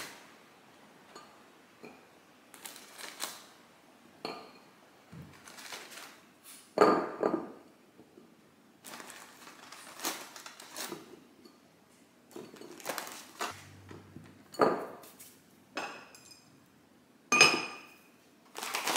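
Cookies set one by one into a glass cookie jar, knocking and clinking irregularly against the glass, with rustling of the plastic cookie packaging in between. Near the end the glass lid goes onto the jar with a short ringing clink, the loudest sound.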